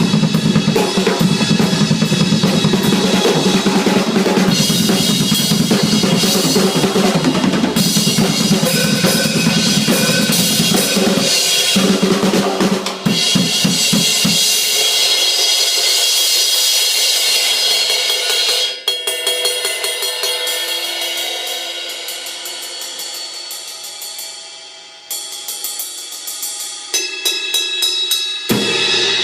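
Yamaha Stage Custom drum kit being played. For about the first twelve seconds it is a full kit groove with bass drum, snare and cymbals. Then for about fourteen seconds only cymbals and hi-hat are heard, with no drums. The bass drum and drums come back in near the end.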